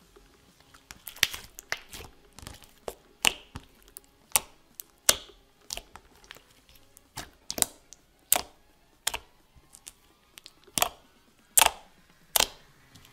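Clear glitter slime being stretched and pressed by hand, giving a string of sharp, irregular pops and clicks, roughly one or two a second; the slime is a little bubbly from being played with.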